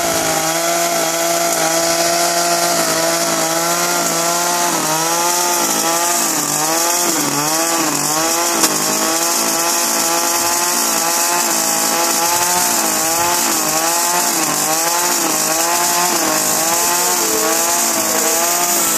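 Chainsaw running at speed while carving wood. From about a quarter of the way in, its pitch repeatedly dips and recovers as the cuts load the chain. There is one sharp tick about halfway through.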